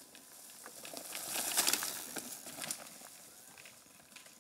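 Small bicycle tyres rolling and skidding over a dirt trail strewn with dry leaves and twigs: a rush of noise with many small crackles that swells about a second and a half in as the bike passes close, then fades.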